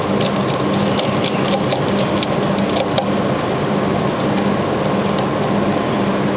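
A steady mechanical drone with a low hum, and a run of small sharp ticks in the first three seconds from a screwdriver tightening a wire's crimped ferrule into a circuit-breaker terminal screw.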